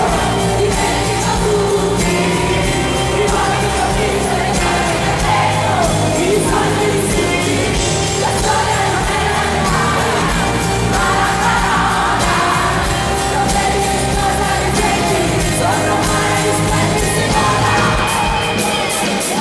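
Live pop-rock song: a woman singing lead into a handheld microphone over her band, heard from among the audience in an arena.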